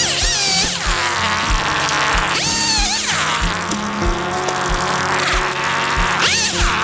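Stihl MS211 two-stroke chainsaw running at high revs, its pitch dropping and recovering three times as it bogs in the cut and frees again. Background music with a steady beat plays underneath.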